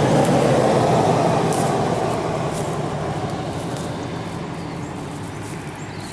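Engine rumble of a passing vehicle, steady and low, fading gradually as it moves away.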